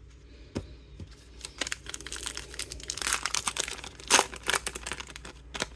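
Trading-card pack wrapper being crinkled and torn open: a few light clicks, then dense crackling of the wrapper from about a second and a half in, with the loudest rips about halfway through.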